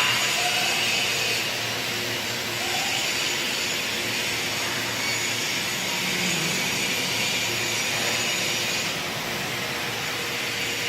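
Steady whooshing hiss of industrial machinery in a robotic welding cell, even in level with no clear beat.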